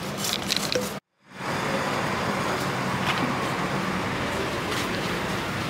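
Steady street traffic noise with a low engine hum, broken by a brief dropout about a second in.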